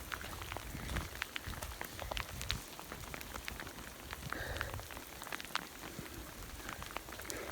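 Rain falling, an even hiss with many irregular sharp drop ticks close by.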